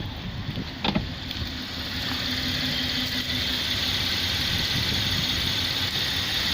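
Holden VF Commodore's 3.6 L LFX V6 idling steadily, heard from inside the cabin, with a short click about a second in and a steady hiss coming in about two seconds in.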